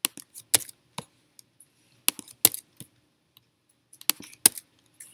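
Sharp clicks of a computer mouse and keyboard as paths are selected and deleted. They come irregularly, in small clusters, with short silences between.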